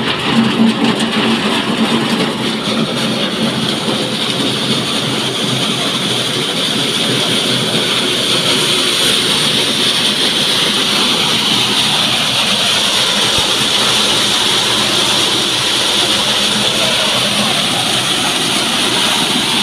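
Tractor-driven maize thresher running steadily under load as corn cobs are fed into its hopper and shelled.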